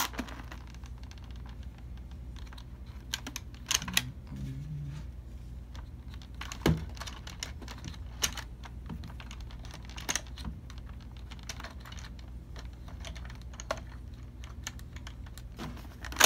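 Irregular light plastic clicks and taps as foam Rival balls are pushed one by one into the loading hole of a Nerf Rival Takedown blaster, with a louder knock about seven seconds in, over a low steady hum.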